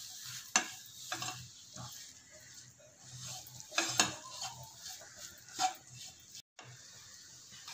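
A plastic slotted spatula stirs and scrapes a thick onion-tomato-spice paste around a nonstick kadai in irregular strokes, with a faint sizzle underneath: ground spices being sautéed on low flame. The audio drops out for a moment near the end.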